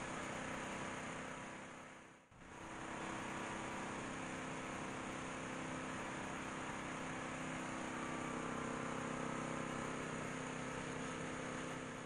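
Steady low mechanical hum with several steady tones, cutting out for about a second near two seconds in and then resuming.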